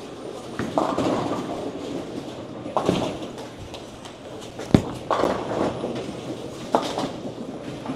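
Bowling alley din: balls rolling and pins crashing on the lanes, with several sharp knocks, each followed by about a second of clatter. The loudest knock comes a little under five seconds in.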